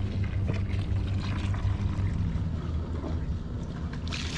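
Water from a garden hose running into a plastic bucket over a steady low hum. Near the end, water pours and splashes heavily off a soaked deck brush.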